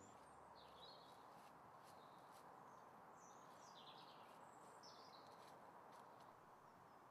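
Near silence outdoors: a faint steady hiss with small birds chirping faintly now and then, four or five short chirps in all.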